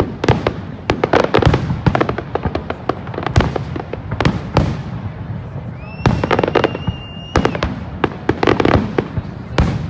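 Fireworks display with rapid, overlapping bangs and crackles, many shells bursting in quick succession. About six seconds in, a high whistle rises in pitch and holds for about a second and a half over the bangs.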